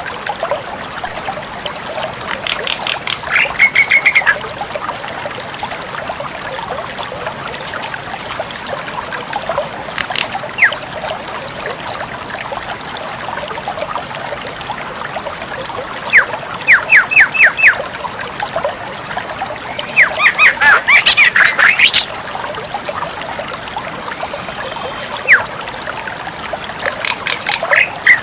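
Javan myna calling in short bouts of whistles and harsh notes with pauses between them, including one quick run of about six sharp notes. A steady hiss lies behind the calls throughout.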